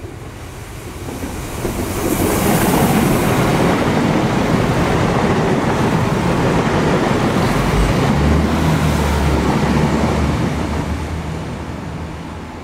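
A five-car Irish Rail 22000 class InterCity diesel multiple unit passing through the station at speed, with wheel-on-rail noise and the hum of its underfloor diesel engines. The sound builds over about two seconds, stays loud for about eight seconds as the carriages go by, then fades as the train draws away, with a low steady engine note standing out near the end.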